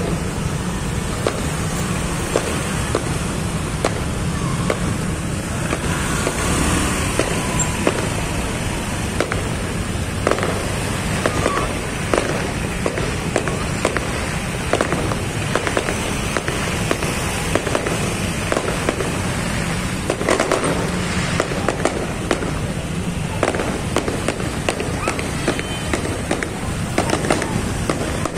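Aerial fireworks going off in a continuous string of bangs, pops and crackles, over the low rumble of a street jammed with motorbikes.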